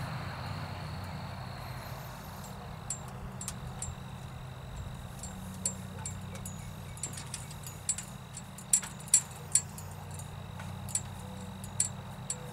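Polish being rubbed by hand onto a bare aluminium grill shell, with irregular sharp clicks and ticks, loudest a few times in the second half, over a steady low hum.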